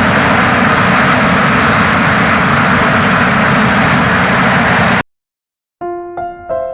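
Embraer 190 airliner's jet engines running loud and steady: a dense rushing noise with a faint high whine, cut off abruptly about five seconds in. After a moment's silence, soft piano music begins near the end.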